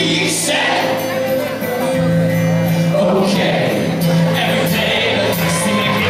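Live band playing through a PA in a hall, heard from the audience: a man sings into a handheld microphone over violin and acoustic guitar, with steady held notes and cymbal-like hiss.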